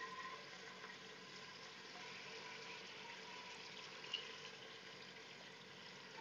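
Faint sizzling of hot oil in a pressure cooker as raw mutton pieces are dropped in, with a light knock about four seconds in.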